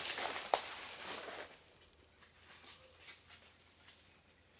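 Footsteps crunching through dry leaf litter, with one sharp snap about half a second in, stopping after about a second and a half.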